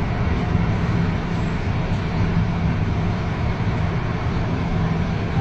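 Madrid Metro Line 12 train running between stations, heard from inside the passenger car: a steady rolling rumble with a low hum.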